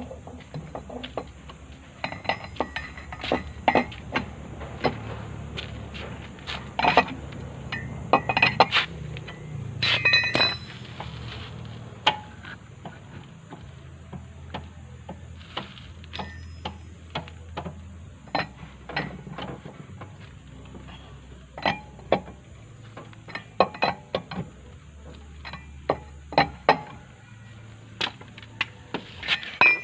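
Irregular metallic clinks and taps of hand tools against metal parts, some ringing briefly, as the tuk-tuk's brake assembly is worked on. A low steady hum runs underneath.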